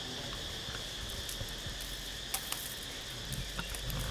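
Insects trilling steadily in one high, unbroken tone, with a few faint light ticks and rustles from the bundle of coconut-leaf midribs being bound with string.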